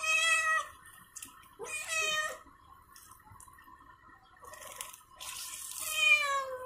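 Wet cat meowing three times while it is towel-dried after a bath; the last meow is longer and falls in pitch.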